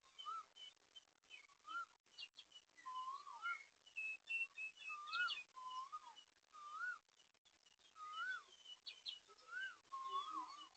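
Birds calling: one gives a short whistled note that rises and falls, repeated about once a second, while others chirp more faintly at a higher pitch.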